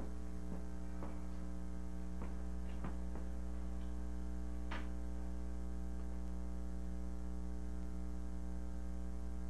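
Steady electrical mains hum on the recording, with a few faint clicks and knocks scattered through it.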